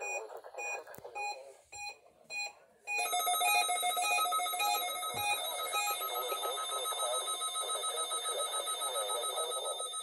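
Midland NOAA weather radio sounding its electronic alert alarm: a loud beep pulsing a little over twice a second that starts about three seconds in, with the weather station's voice broadcast running underneath. Before that, fainter repeating beeps sound over the voice.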